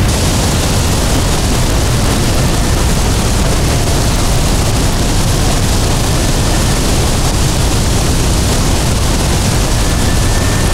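Steady, loud rushing roar of a simulated molten-steel pour from a ladle into ingot moulds, played as a sound effect through the hall's speakers. It starts abruptly and is heavy in the low end.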